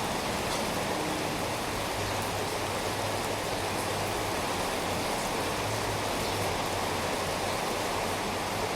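Steady heavy rain, an even rushing hiss with occasional faint drop ticks.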